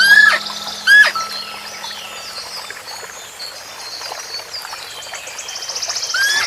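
Birds calling: two loud, rising calls about a second apart at the start, scattered chirps, and a fast high trill building near the end.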